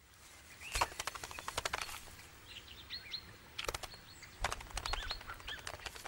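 A Siberian jay fluttering its wings in quick runs of flaps, with a few short high chirps about halfway through.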